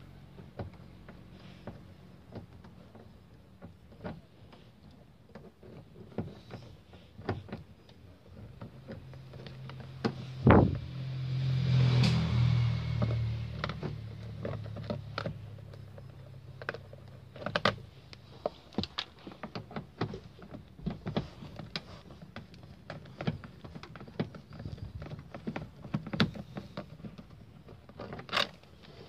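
Screwdriver clicking and scraping against screws in a plastic car-door armrest as the screws are worked out, in many short clicks and knocks. Near the middle, a loud knock is followed by a low hum that swells and fades over several seconds.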